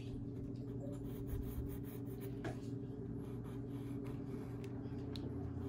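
Pencil scratching on paper as lines are drawn, with a few faint ticks, over a steady low hum.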